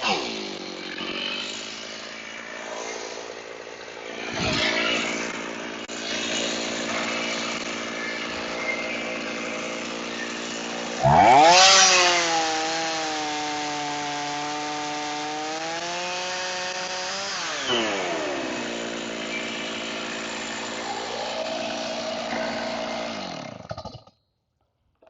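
Chainsaw on a rail mill ripping a slab off a sweet gum log, the engine running steadily under load. It revs up sharply about eleven seconds in and settles back, drops in pitch again a few seconds later, and shuts off near the end as the cut is finished.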